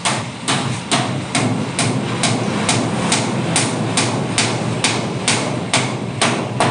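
Steady hammer blows on tin sheeting over a wooden board, about two strikes a second.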